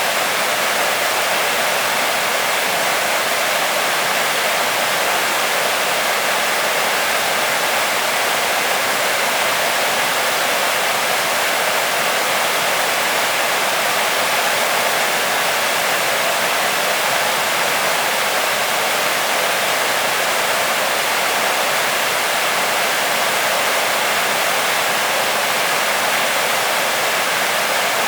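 Waterfall: falling water crashing steadily onto rock and pool, an even loud rush with no breaks.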